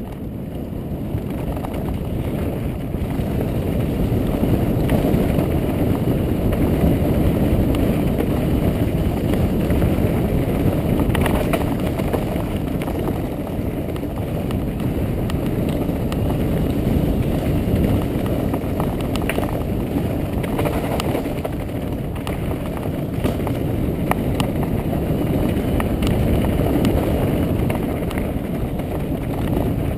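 Mountain bike ridden fast down a dirt and grass trail: a loud, steady rumble of wind buffeting the onboard microphone and knobby tyres rolling over the ground. It builds over the first few seconds as speed picks up, with occasional sharp clicks and rattles from the bike.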